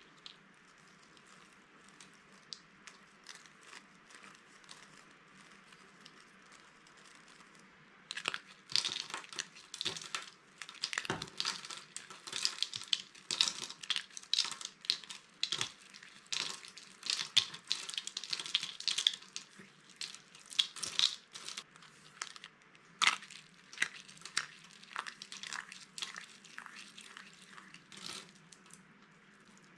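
Dry bar soap crunching and crackling as it is crushed: a run of sharp, crisp cracks. It is faint and sparse at first, turns dense and loud about a quarter of the way in, then thins out near the end.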